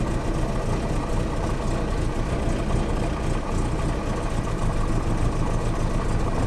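Series 3 Land Rover petrol engine idling steadily, running rough with a misfire, with one spark plug lead pulled off to test that cylinder.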